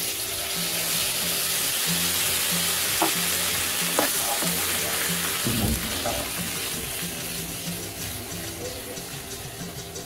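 White wine poured into a hot frying pan of green beans, almonds and bacon sets off a loud sizzle that starts suddenly and slowly dies away. A little over five seconds in, a low whoosh as the alcohol in the pan catches fire and flames up.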